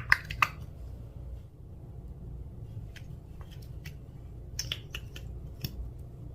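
Clear slime being worked by hand, giving sticky clicks and small pops, a quick run of them in the first half second, then a few scattered ones, over a low steady hum.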